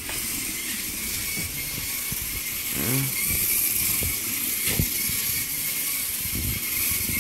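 LEGO 9V train motor running around its track: a steady whirring with a thin, steady high whine.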